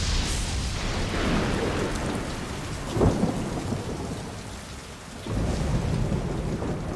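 Thunderstorm: heavy rain falling steadily, with a sharp thunder crack about three seconds in and thunder rumbling again from about five seconds.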